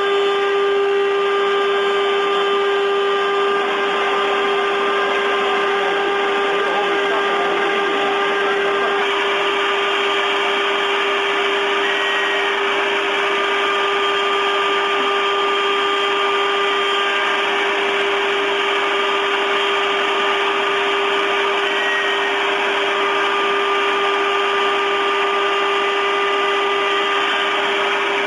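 CNC milling machine's spindle running with the cutter milling the workpiece: a steady high whine over a dense cutting noise, with the higher tones shifting about nine seconds in.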